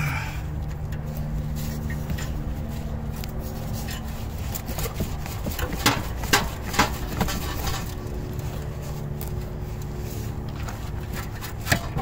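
Hand-tool work on an old exhaust muffler and pipe: a handful of sharp knocks about five to seven seconds in and a few more near the end, over a steady low hum.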